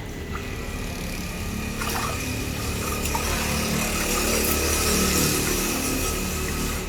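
Water running in a steady rush, growing a little louder toward the middle.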